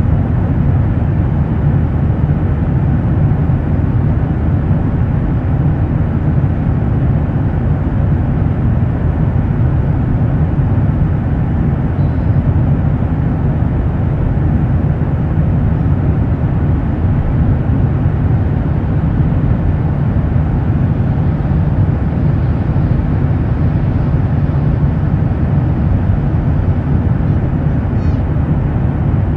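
Steady low rumble of a Ryanair jet airliner landing in strong wind, with the jet noise and the wind blended into one even roar.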